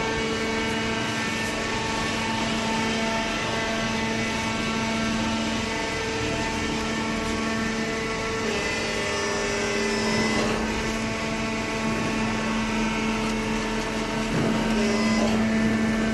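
Hydraulic baler's motor and hydraulic pump running with a steady whine and hum. The tone shifts about eight seconds in and again near the end.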